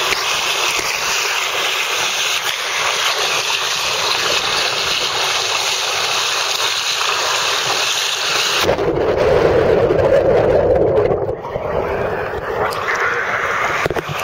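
Water rushing and splashing over a waterproof camera as it slides down a waterslide, a steady loud hiss. About eight and a half seconds in the sound suddenly turns to a muffled, lower rumble as the camera plunges into the landing pool.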